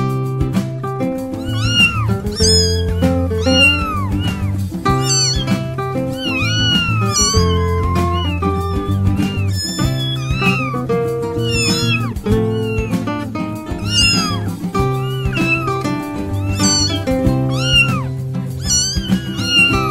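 Domestic cat meows, many short arching calls in quick succession with one longer falling meow near the middle, laid over steady background music.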